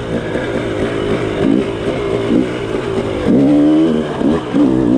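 Dirt bike engine revving up and down as the throttle is worked on an enduro trail, its pitch rising and falling every second or so, with the longest, loudest rev about three and a half seconds in.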